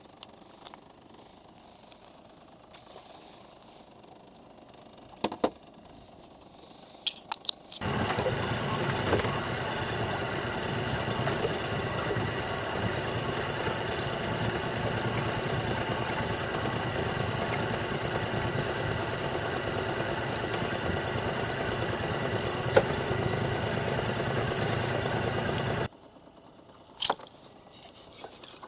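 Boat engine running steadily under way, a constant drone with a steady whine over it. It cuts in abruptly about eight seconds in and cuts off a few seconds before the end. Before it there are only a few faint knocks.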